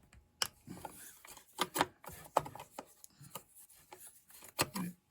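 Irregular clicks and knocks of a tool and hard plastic parts being handled as screws are worked out of a Poulan Pro 4620 chainsaw's housing.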